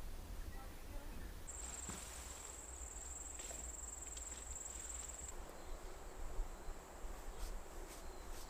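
An insect trilling, high and steady, coming in about a second and a half in and growing fainter after about five seconds. A steady low rumble lies underneath, with a few faint ticks.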